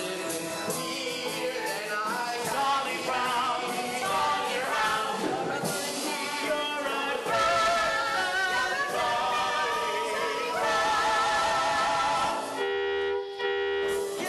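Stage-musical cast singing together with instrumental accompaniment. Near the end the singing breaks off and a steady held note sounds for about a second.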